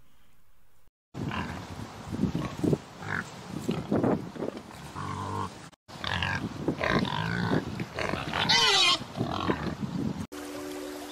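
Animal calls: a run of short, rough grunts. After a hard cut about halfway, more grunts follow, with a high call that falls in pitch.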